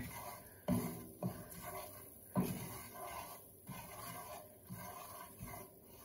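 A wooden spatula scrapes and stirs cornmeal in hot grease in a cast iron skillet, in a series of irregular strokes. The cornmeal is soaking up the grease and beginning to brown, the first stage of a sawmill gravy.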